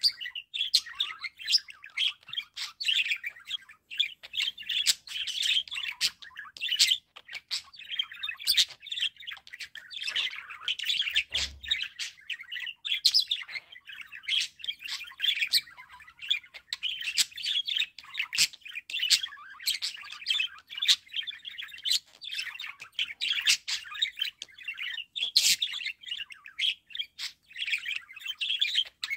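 Budgerigar warbling: a continuous chattering song of rapid chirps and sharp clicks.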